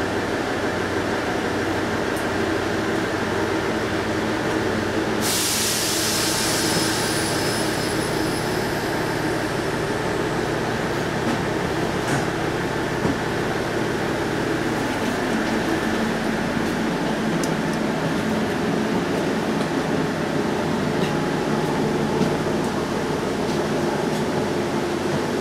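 Diesel railcar's engine idling, a steady hum heard from inside the passenger saloon. About five seconds in there is a sudden hiss that fades away over several seconds.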